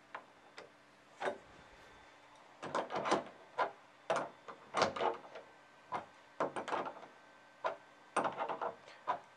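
Crescent wrench clinking and scraping against a nut and elevator bolt as the nut is worked down snug, in short irregular metallic clicks with brief pauses between repositionings of the wrench.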